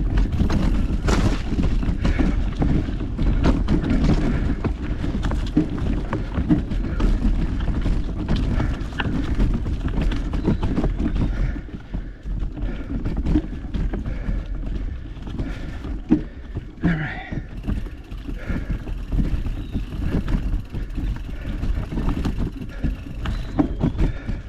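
Mountain bike rolling over a rough dirt trail, picked up close on a GoPro: a steady low rumble of tyres on the ground with constant rattling and knocks from the bike, easing somewhat about halfway through.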